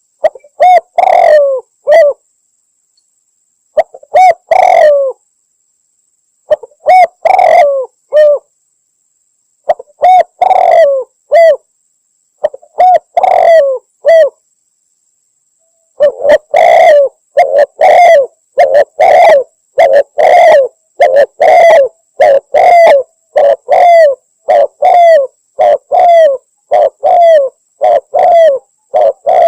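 Spotted dove (tekukur) cooing, from a lure-call recording billed as a female calling a male. Short phrases of a few coos come about every three seconds, then from about halfway it breaks into a quick unbroken run of coos, more than one a second.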